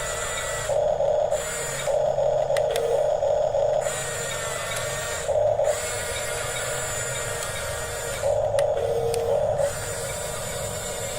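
Huina 1554 RC bulldozer's electric motors and plastic gearboxes whirring in short runs, starting and stopping four times as it is driven by remote: a brief burst about a second in, a longer run around two to four seconds, a short blip, then another longer run near the end.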